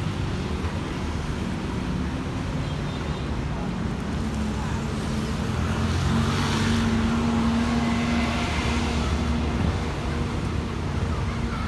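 A motor vehicle's engine running steadily, growing a little louder about six seconds in.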